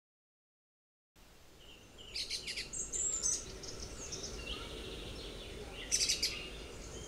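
Silence for about the first second, then birds chirping: clusters of quick, high calls about two to three seconds in and again near the end, over faint outdoor background noise.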